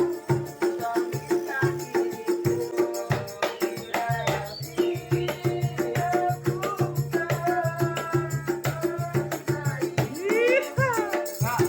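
Street buskers' music: a steady percussive beat over a pulsing bass line with a held note, and a voice singing with sliding phrases near the end.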